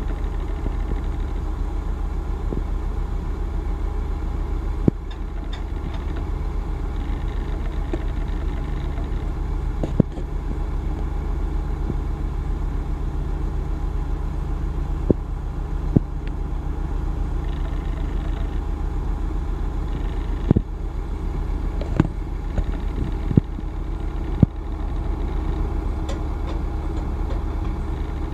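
International DT466 six-cylinder diesel engine idling steadily, with short sharp clicks now and then over it.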